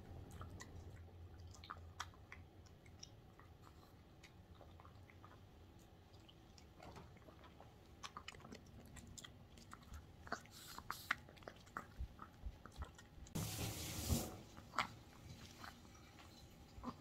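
Small dog chewing and biting bite-size pieces of homemade dog kimbap from a silicone plate: faint, irregular clicks and crunches that grow busier about halfway through. Near the end comes one short, louder rustling scrape.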